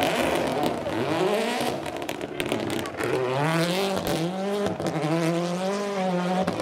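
Mini rally car's engine revving hard on loose gravel, rising in pitch about a second in, then held high with brief dips as it changes gear.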